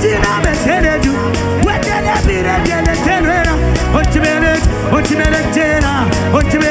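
Live gospel worship band music with a steady drum beat and a melody line that bends up and down in pitch.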